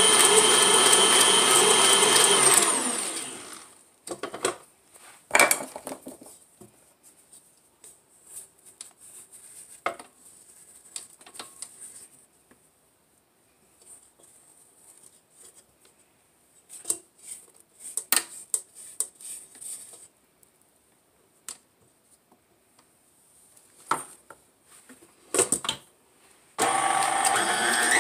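Electric stand mixer running with a steady pitched hum as it beats a thick, cookie-dough-like mixture in a steel bowl, then switched off, winding down about three seconds in. Scattered knocks and scrapes against the steel bowl follow while it is off, and the mixer starts up again just before the end.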